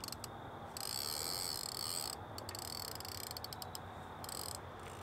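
Fishing reel being cranked in short spells, giving a fast ratcheting whir and a quick run of clicks.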